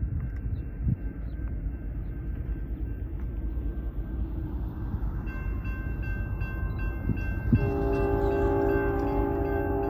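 Approaching freight train rumbling and growing louder; about halfway in a bell starts ringing steadily, and near the end the lead locomotive, Union Pacific AC6000CW 6945, sounds its horn, a sustained multi-note chord.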